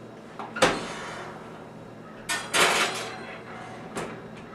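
Kitchen oven door opening with a sharp clunk about half a second in. In the middle comes a longer metallic rattling scrape as the glass baking dish of catfish goes onto the oven rack, and near the end a light knock as the door is swung back up.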